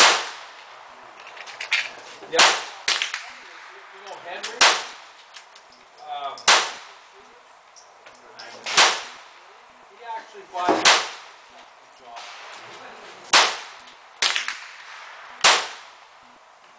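Sig 1911-22 .22 LR semi-automatic pistol fired in slow single shots, about eight sharp cracks roughly two seconds apart. Fainter shots fall in between some of them.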